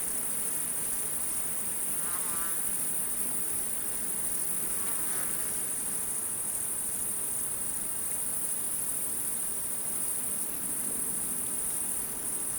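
Night insect chorus: a steady, high-pitched shrill drone of many insects singing at once. Two short wavering calls rise above it, about two and five seconds in.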